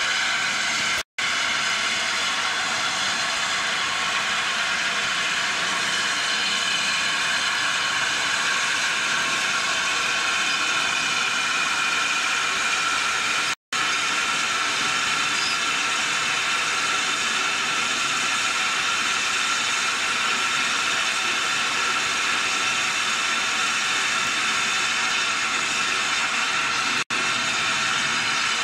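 Steady, loud hiss of steam from the BR Standard Class 8 Pacific No. 71000 'Duke of Gloucester', with the sound cutting out for an instant about a second in, about halfway and near the end.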